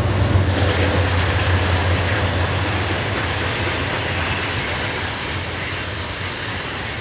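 BNSF freight train of coal cars rolling past: the low, steady drone of its diesel locomotives under the rush of steel wheels on rail, slowly fading.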